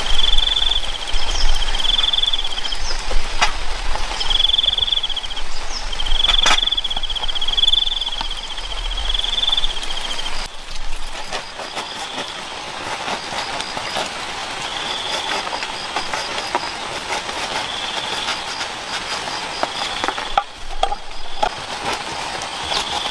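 Insects calling in repeated high, buzzy trills, each about a second long, clearest in the first half and fainter later. Scattered sharp clicks and ticks sound over a steady hiss.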